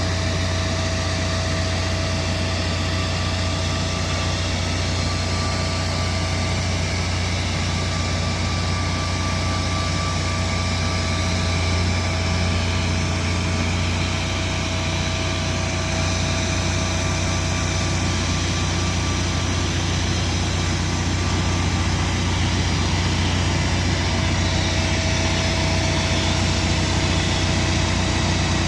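Boeing 777F freighter's turbines running steadily on the ramp: a constant low hum with thin steady whines over a broad rushing hiss.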